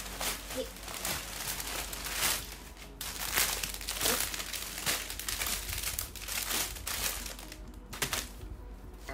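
Plastic packaging, a courier mailer and a clear plastic garment bag, crinkling and rustling as it is pulled open and handled. The crackles come in a dense irregular string and thin out near the end.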